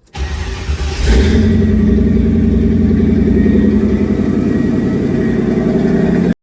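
Car engine running, growing much louder about a second in and then holding steady, before cutting off suddenly.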